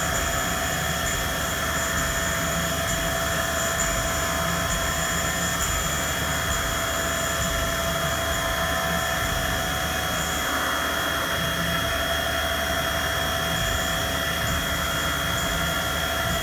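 CNC vertical mill's spindle running steadily with a whine made of several constant tones while an end mill takes a finish pass, stepping back and forth along the radius of a bearing housing.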